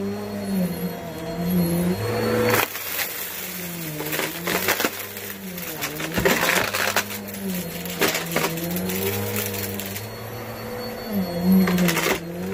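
Helix vacuum cleaner running, its motor hum dipping and rising in pitch as the nozzle is worked over the floor, with a clatter of small debris being sucked up through it for most of the middle.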